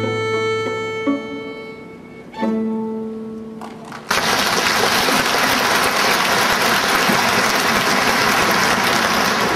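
String quartet playing the closing chords of a piece, the last chord held and fading away. About four seconds in, audience applause breaks out suddenly and continues steadily.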